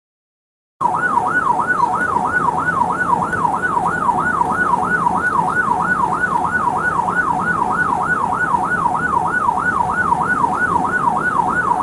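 Police car siren in rapid yelp mode, sweeping up and down about three to four times a second, over the low rumble of the moving patrol car. It starts about a second in.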